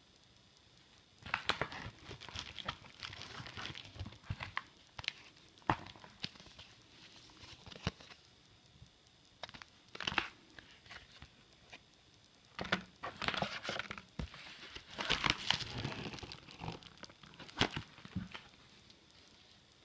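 Paper and plastic packaging handled by hand: irregular crinkling and rustling of a padded mailer and blister-pack cards, with a few sharp clicks along the way.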